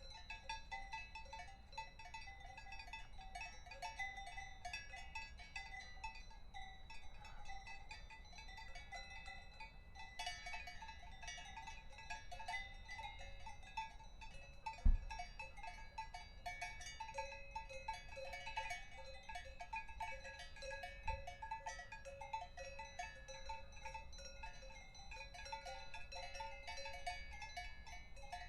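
Cowbells on grazing cattle clanking and jangling irregularly without a break, with two dull knocks, one about halfway through and one about two-thirds through.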